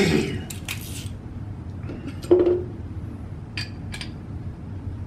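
A few irregular metallic clicks and clinks as a quarter-inch ratchet wrench and a dial torque gauge are handled and fitted together. The loudest clink comes a little after two seconds and has a short ring.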